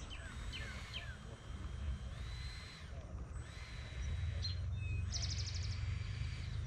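Birds calling with short chirps, held whistled notes and a quick trill a little after five seconds, over wind rumbling on the microphone that grows about four seconds in.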